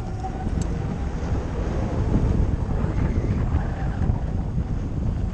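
Wind buffeting a helmet-mounted microphone, with a steady low rumble of tyres on a dirt trail as a Zero FX electric motorcycle rides along.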